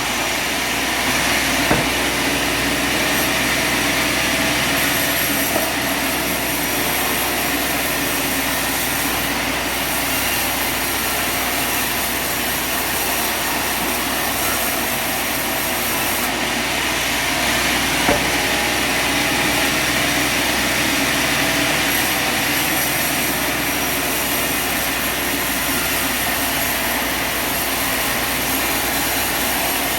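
Sawmill running steadily: a continuous, even machine noise, with a brief knock about two seconds in and another a little past halfway.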